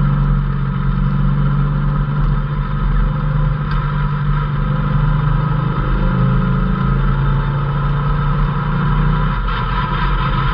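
Off-road vehicle's engine running steadily under way on a dirt trail, heard from inside the open cab, with constant road and wind noise. The engine note shifts a little near the end.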